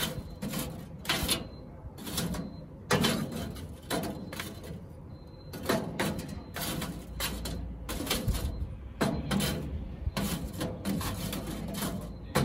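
Charcoal briquettes clinking, knocking and scraping against each other and the grill's steel firebox as they are moved with a metal tool: irregular clatter, several knocks a second at times.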